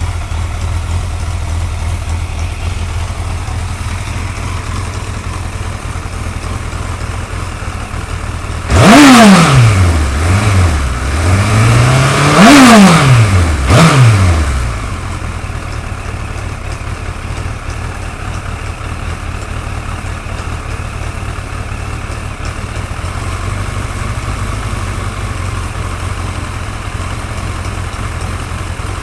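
Suzuki GSX-R1100 inline-four motorcycle engine idling, blipped twice by the throttle about nine and twelve seconds in, each time rising quickly and falling back to idle.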